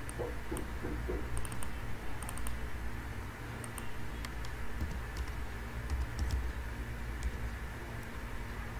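Computer keyboard typing: scattered light key clicks, irregularly spaced, over a steady low hum.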